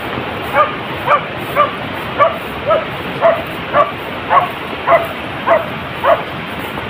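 Young beagle yipping over and over, about two short, high cries a second, over a steady background noise.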